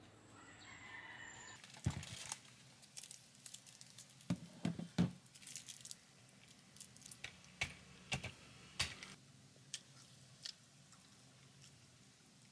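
Irregular light clicks, taps and knocks of small objects being handled and set down, starting about two seconds in and thinning out after about ten seconds.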